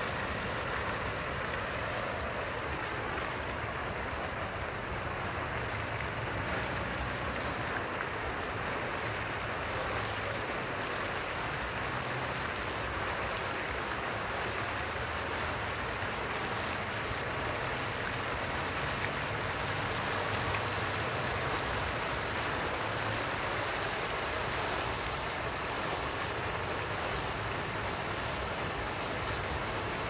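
Fountain jets and arcing sprays splashing down into the basin: a steady, unbroken splashing of falling water.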